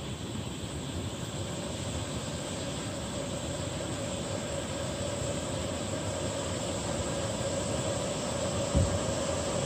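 Canister gas backpacking stove burning under a heat-exchanger pot: a steady rushing hiss of the flame, with a humming tone that slowly grows louder as the water heats. A brief low thump comes near the end.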